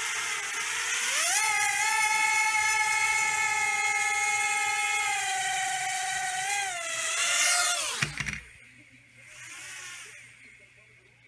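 Small toy quadcopter's motors and propellers whining as the throttle is raised. The pitch climbs about a second in, holds steady, wavers, rises briefly and then drops away about eight seconds in. A shorter, quieter spin-up follows near the end.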